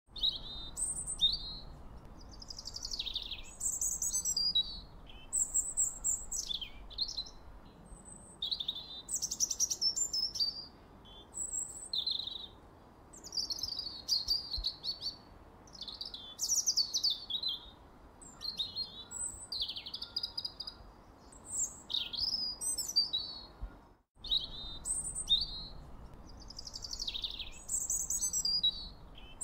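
A songbird singing a long run of varied chirped and whistled phrases with short pauses between them, over a faint steady hiss, cutting out for a moment near the end.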